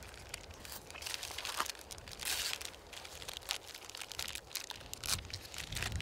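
Clear plastic food bag crinkling as a sandwich is handled and eaten out of it, in irregular crackling rustles, loudest about two seconds in.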